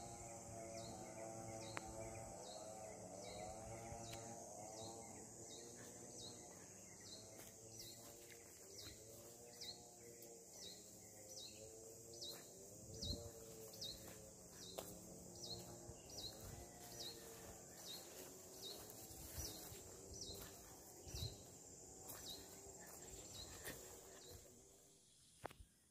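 Quiet forest ambience: an insect chirping steadily about twice a second over a high, even trill, with a faint wavering tone in the background and a few soft knocks. It fades out near the end.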